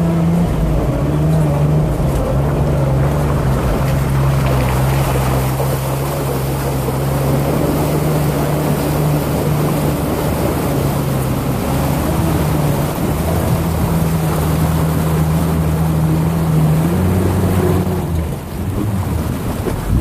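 Jeep's 4.0-litre inline-six engine running steadily under load while the tyres churn through river water, throwing up spray. The engine note steps up near the end.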